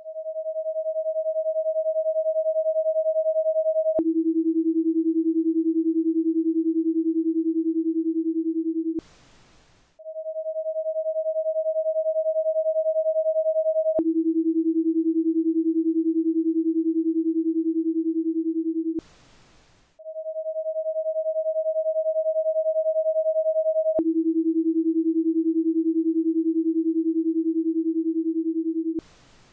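Paced-breathing guide tones in a ten-second cycle: a higher steady tone for four seconds cueing the inhale, then a steady tone about an octave lower for five seconds cueing the exhale, then a one-second pause as a breathing space. The cycle runs about three times.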